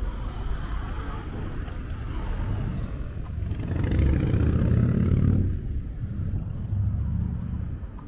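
Road traffic passing on the street: motor vehicles going by with a low engine rumble. The loudest passes close about four to five seconds in, and a smaller one about seven seconds in.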